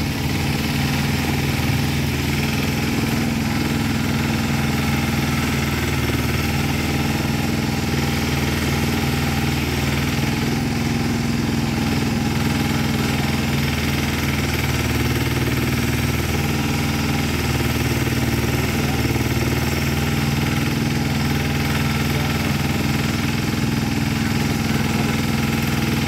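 Engine of a small movable backhoe running steadily at a constant speed while the machine digs.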